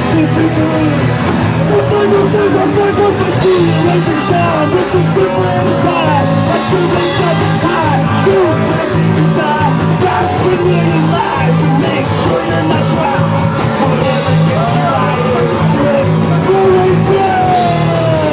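Punk rock band playing live and loud, with a voice singing over it.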